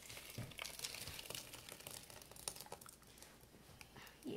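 Thick blended strawberry purée pouring out of a blender jar into a steel saucepan: faint, irregular crackling and small wet clicks.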